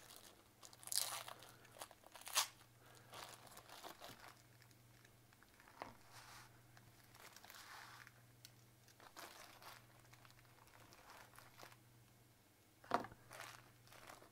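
Faint, scattered crinkling and crunching handling sounds as Milliput two-part epoxy putty and its packaging are worked by hand, louder about one second and two and a half seconds in and again near the end.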